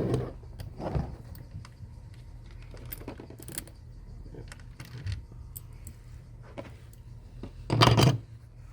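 Computer parts and tools being handled: scattered light clicks and clatters of small hardware, with one louder knock near the end.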